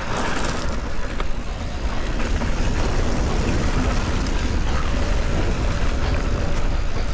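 Wind rumbling over an action camera's microphone as a mountain bike rolls fast down a loose, sandy dirt and grass slope, with steady tyre and bike rattle underneath.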